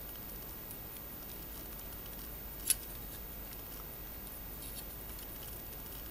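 Quiet handling of a plastic model-kit hull part, with one sharp click a little under three seconds in over a steady faint hiss.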